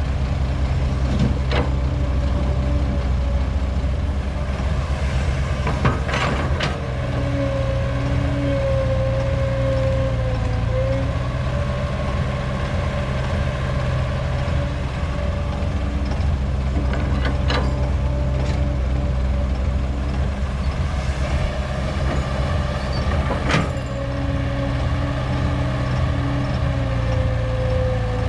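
Old Caterpillar excavator working, its diesel engine running steadily with a whine that wavers in pitch now and then, and several sharp metallic knocks.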